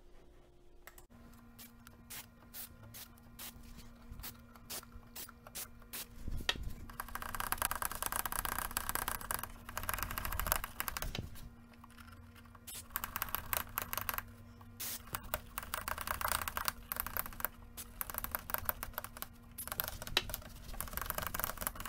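Aerosol contact cleaner hissing in three longer bursts into the receiver's stiff slide controls, among clicks and scrapes of the sliders being worked back and forth. A faint steady hum sits underneath from about a second in.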